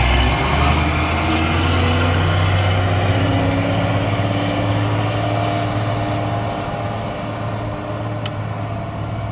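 A water tanker truck's engine runs as the truck drives off up the road. Its note rises a little early on, then slowly fades as it pulls away.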